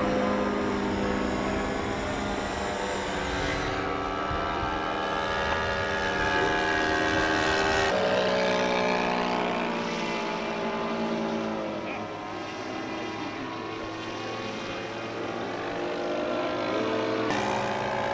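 Radio-controlled float-plane model's engine and propeller in flight, running steadily with its pitch shifting up and down. The sound changes abruptly about eight seconds in and again near the end.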